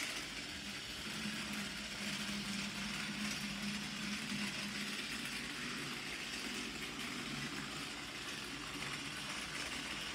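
Plarail TS-03 Henry toy train's battery motor running steadily as it goes round plastic track: a steady hum with a hiss.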